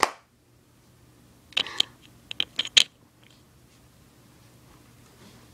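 Handling noise of small plastic toy figures on a playset floor: a sharp click, then a short scuffing sound and a quick run of four clicks about two seconds later.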